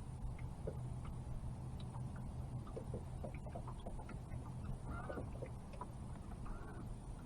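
Two short bird-like calls, about five and six and a half seconds in, over a low steady rumble and faint scattered ticks.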